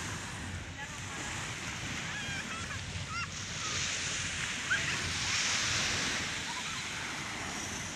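Gentle surf washing on a sandy shore, with wind rumbling on the microphone. A few faint, short high calls rise over it in the middle.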